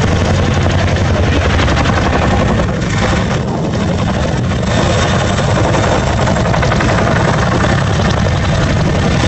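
CH-47 Chinook tandem-rotor helicopter flying past low, its twin rotors giving a loud, steady, rapid blade chop over the engine noise.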